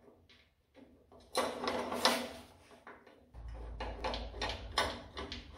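Handling noise of an aluminium bracket and a hand screwdriver against a band saw's steel column as a screw is fitted: a louder scraping stretch about a second and a half in, then a low hum under a run of light clicks.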